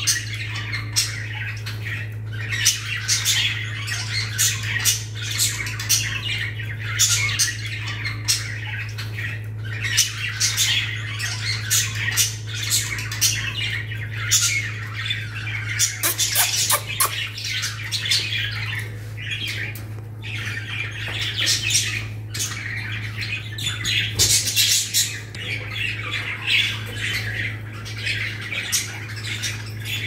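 Small caged parrots, lovebirds among them, keep up rapid shrill squawking and chattering without pause, over a steady low hum.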